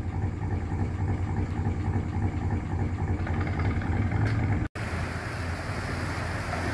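Boat engine running steadily with a low throbbing rumble, under load as the boat pushes against the incoming tide to get through a sluice gate. About three-quarters through the sound cuts out for an instant and returns with a louder rushing hiss over the engine.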